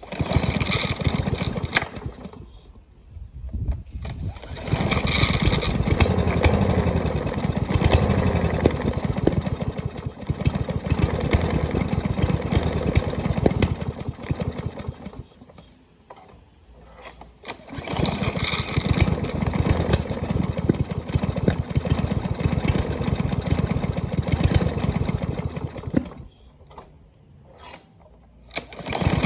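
Small lawn mower engine starting and running roughly for several seconds at a time, its speed wavering, then dying away. It happens three times and catches again near the end: the mower won't keep running.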